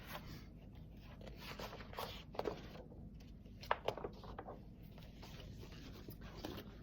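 Faint rustling and a few soft clicks of a picture book being handled and its pages turned.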